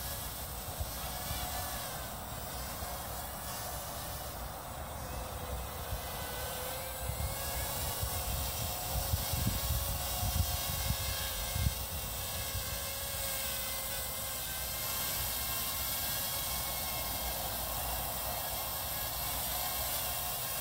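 Small toy quadcopter's motors and propellers buzzing steadily as it hovers low, the pitch wavering slightly as the throttle changes. Wind gusts on the microphone add low rumbles about halfway through.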